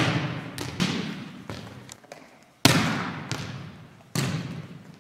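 A volleyball being struck and hitting the hard gym floor: sharp smacks right at the start and about one, two and a half, and four seconds in, with smaller taps between. Each smack echoes on in the large gym.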